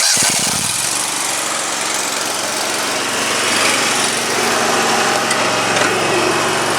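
Dixon 72-inch zero-turn mower engine catching right at the start after the starter solenoid is jumped with a screwdriver, then running steadily with a miss. The owner puts the misfire down to a failing ignition coil.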